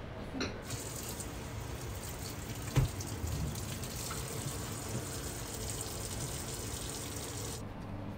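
Water running from a tap into a sink, turned on just after the start and shut off near the end, with a single knock about three seconds in.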